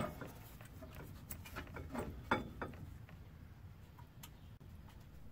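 A few faint, scattered metallic clicks and light knocks as a front brake caliper with its pads is handled and slid into place over the disc rotor.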